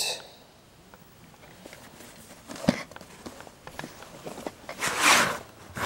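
A VHS cassette and its cardboard sleeve being handled: scattered light clicks and taps, one sharper knock, then a short rustling slide about five seconds in.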